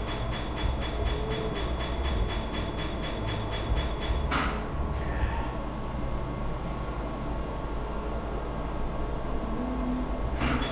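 Tattoo-removal laser firing a rapid train of pulses, a sharp snap about five times a second over a steady high tone, which stops about four seconds in. A skin-cooling cold-air blower runs underneath with a steady low rush, with a brief burst of noise as the firing stops and again near the end.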